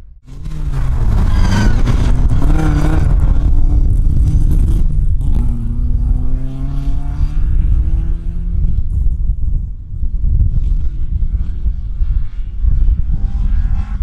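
Competition car engines accelerating hard, the pitch climbing as the revs rise, over a heavy low rumble. The sound breaks off abruptly at the start and again about five seconds in, then another engine note climbs.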